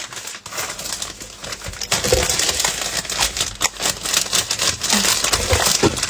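Water poured from a plastic water bottle into a plastic bottle of yellow drink, then that bottle shaken: sloshing liquid with dense crinkling and clicking of the plastic, louder from about two seconds in.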